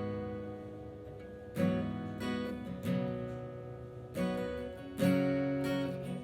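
Acoustic guitar strumming chords, each strum left to ring and fade before the next, as the instrumental opening of a worship song.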